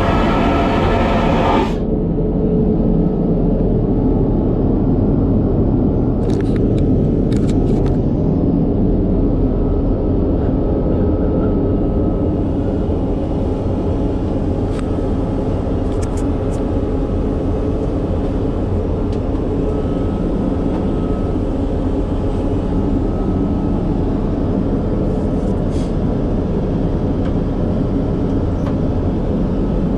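Steady low rumble of an airliner's cabin noise in flight, heard inside the aircraft lavatory, with a faint steady tone above it. A brighter hiss cuts off suddenly about two seconds in, and a few light clicks come and go.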